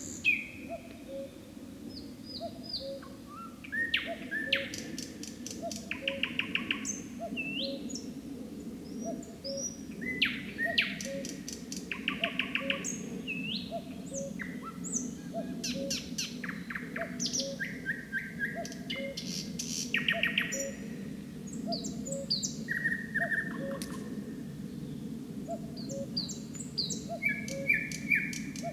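Nightingale singing in varied phrases: rapid clicking trills, rising whistles and repeated notes, separated by short pauses. A short low note repeats about once a second beneath the song, over a steady low background hiss.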